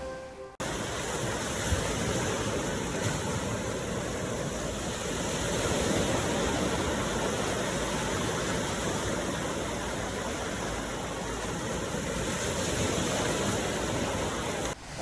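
Steady rushing of ocean surf, swelling gently, starting suddenly about half a second in and cutting off just before the end.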